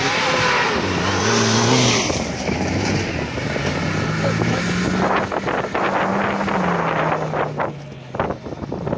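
Off-road vehicle's engine revving hard, its pitch rising and falling several times, with scattered knocks and clatter in the second half.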